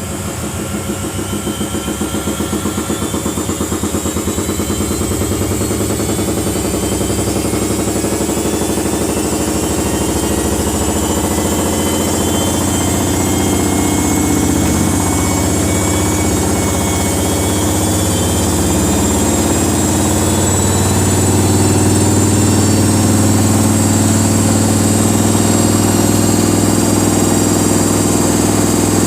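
Samsung washing machine spinning up: the motor's whine slowly rises in pitch and the running grows steadily louder, with a fast pulsing from the turning drum in the first few seconds.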